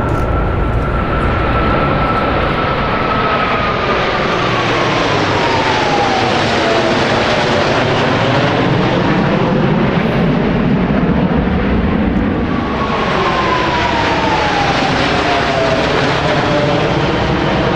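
Blue Angels F/A-18 Hornet jets flying low in formation: a loud, steady jet roar. Twice a whine falls in pitch as the formation passes.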